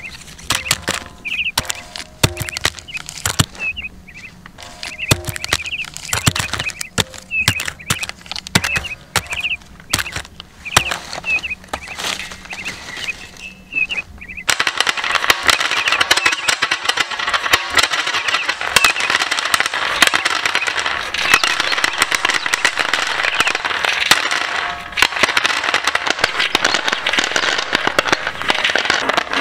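Wrapped Cadbury Dairy Milk chocolate bars dropping onto a pile in a quick run of sharp clattering knocks. About halfway through the sound changes suddenly to a dense, continuous rattle of almonds pouring and tumbling.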